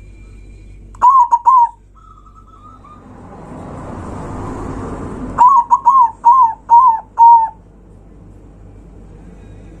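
Zebra dove (perkutut) cooing: a quick group of three coos about a second in, then a phrase of five coos, the last one drawn out. Between them a rush of noise swells up and cuts off suddenly.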